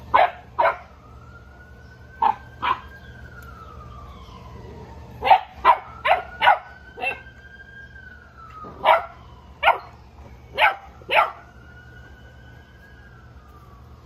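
A Boerboel barking, about thirteen short sharp barks in pairs and quick runs with pauses between. Under them a faint siren wails, slowly rising and falling in pitch.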